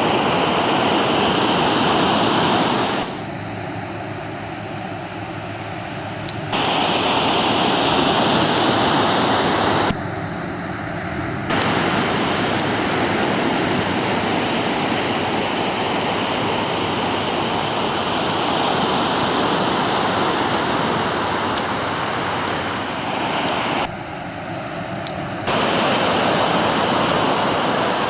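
Ocean surf breaking on the beach, a steady rushing noise. It drops abruptly to a quieter level three times for a second or few seconds at a time, then returns just as suddenly.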